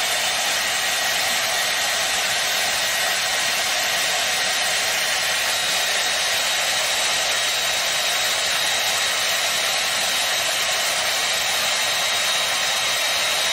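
Handheld hair dryer running steadily: an even rush of blown air with a thin, steady high whine.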